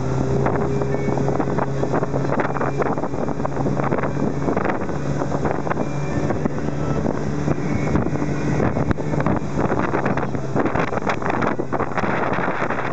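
North River motorboat under way at cruising speed: its engine drones steadily under the rush of water along the hull, with wind buffeting the microphone.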